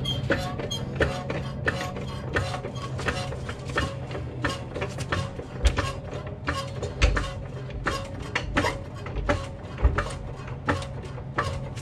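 Hydraulic floor jack being pumped under a 1973 VW Beetle's front suspension, a rapid run of metal clicks and clanks with a few heavier thumps in the second half, over a steady low hum. The jack is raising the front suspension to run the newly fitted air shock up through its travel.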